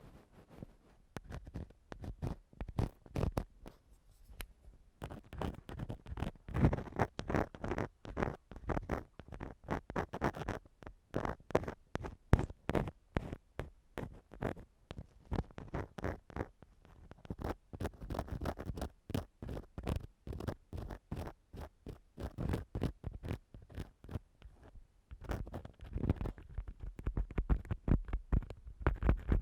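Ear-cleaning tool scratching and scraping against the microphone in ASMR ear cleaning: runs of quick, short strokes with brief pauses between them.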